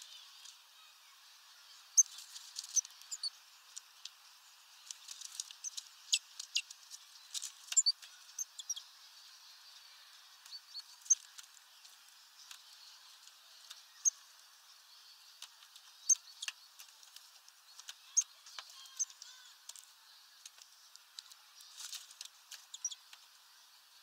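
Small songbirds at a hanging mesh seed bag, great tits and greenfinches: irregular sharp clicks and taps from pecking and perching, with brief high chirps scattered through.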